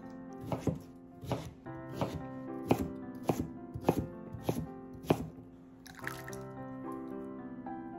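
Kitchen knife chopping peeled sweet potato on a wooden cutting board: about ten sharp knocks, roughly one every half second. About six seconds in, the diced cubes are slid off the knife into a glass bowl of water with a short splash.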